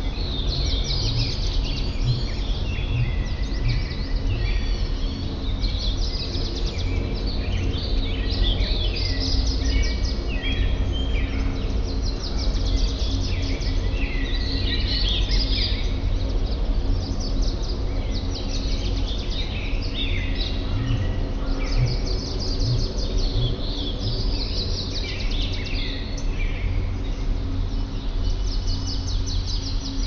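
Several small songbirds chirping and singing, their short calls and trills overlapping, over a steady low hum.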